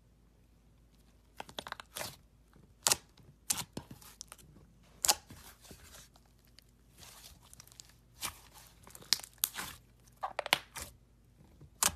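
Slime being worked by hand, giving irregular sharp crackling pops and clicks that start about a second and a half in.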